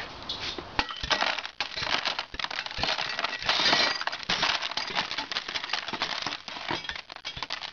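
Shattered tempered glass being knocked out of a wood stove's steel door frame with the end of a hammer handle: a dense run of clinks and crunches as fragments break loose and fall into a plastic tub, busiest about three and a half seconds in.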